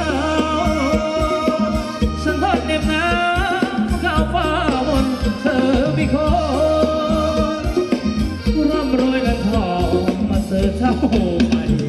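Live band playing Thai ramwong dance music: a singing melody line over a steady bass and drum beat.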